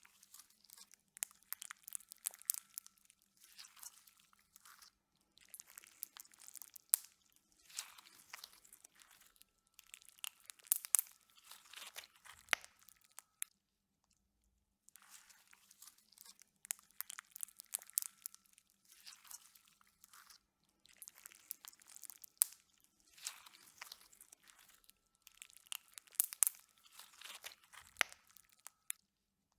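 Slime being squeezed and pressed by hand, giving bursts of many small sharp clicks and pops, with a short pause about halfway through.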